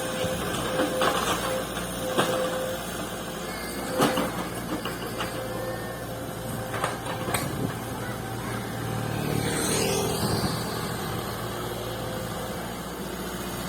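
Excavator engine running steadily, with several sharp knocks and clanks. About ten seconds in there is a short high whine that rises and falls.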